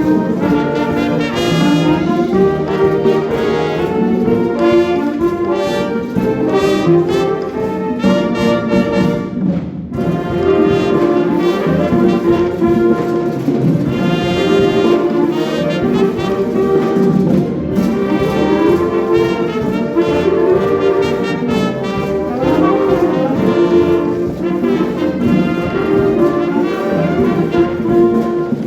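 Wind band playing with brass to the fore, trumpets and trombones carrying the music, with a brief break about ten seconds in.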